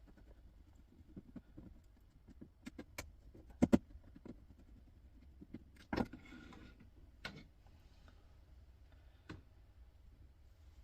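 Scattered clicks and knocks of plastic and metal parts being handled while an appliance's motor unit is pulled from its plastic casing. A double knock comes a little under four seconds in and a single louder knock about six seconds in, with a short rustle after it.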